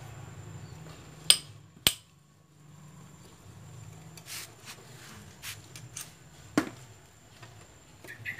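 Metal clanks and ticks of a long socket wrench being fitted to and turned on bolts of a Honda Vario 125 engine casing: two sharp clanks a little over a second in, another at about six and a half seconds, and lighter ticks between.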